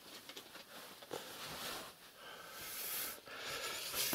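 Rustling and breathy handling noise that swells over the last couple of seconds, ending in a single sharp click.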